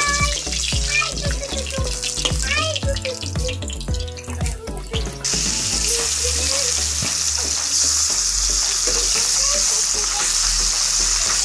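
Fish steaks frying in hot mustard oil in a steel kadai. A softer sizzle with spatula clicks turns into a loud, steady sizzle about five seconds in, as fresh pieces go into the oil.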